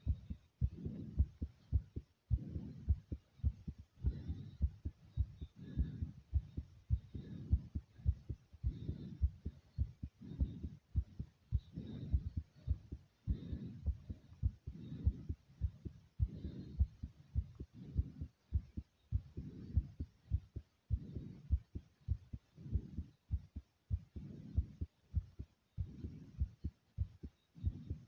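A person's heartbeat, beating hard after more than 50 jumping jacks: a quick, steady run of low thumps, with heavy breathing swelling softly underneath.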